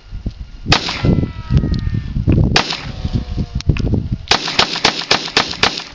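Taurus 24/7 Pro .45 ACP semi-automatic pistol firing: two single shots about two seconds apart, then a quick string of about six shots, roughly four a second.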